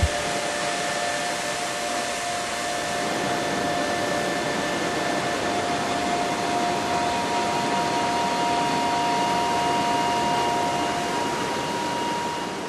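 Steady rushing roar of a waterfall, with a few faint held tones over it.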